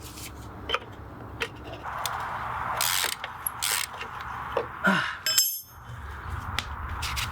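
Hand ratchet wrench clicking in repeated runs as a stubborn bolt on a VW Beetle's rear axle and spring plate is worked loose, with a short pause just past the middle.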